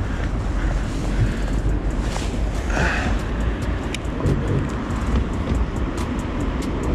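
Wind rumbling on the microphone throughout. From about halfway, a light ticking of about three to four a second as a Daiwa Revros 2000 spinning reel is wound in.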